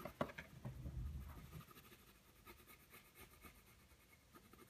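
Colored pencil scratching faintly on paper as it shades over a gouache illustration, with a single sharp knock just after the start.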